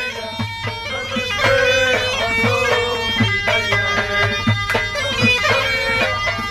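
Tunisian mizwad (goatskin bagpipe) playing a fast, reedy melody. A steady percussion beat runs under it, about two hits a second.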